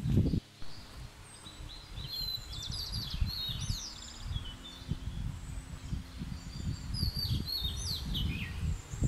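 Several small forest birds chirping and calling, with a quick trill about three seconds in. Underneath, irregular low thuds of footsteps on a gravel trail.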